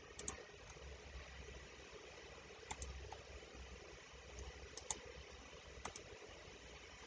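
Computer mouse clicking: about four faint paired clicks, a second or two apart, over low room hiss.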